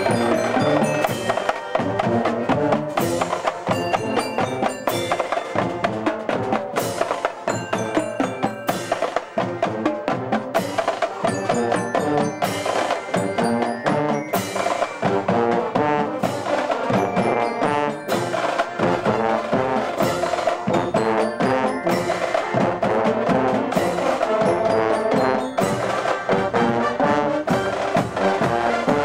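Marching band playing: drums beat a steady march rhythm under brass instruments.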